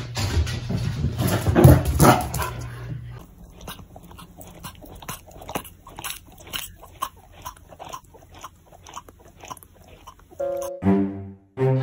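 Bernedoodle puppy chewing and gnawing on a red rubber Kong toy: many short, irregular clicks and crunches of teeth on rubber. Before the chewing, a louder stretch of knocks and rustling; music starts near the end.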